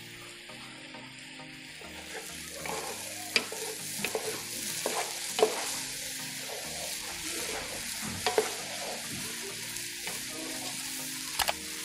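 Red lentils with grated potato and carrot frying in butter in a pan, sizzling steadily while a wooden spatula stirs them, with a few sharp scrapes and knocks of the spatula against the pan. The sizzle grows a little louder after about two seconds.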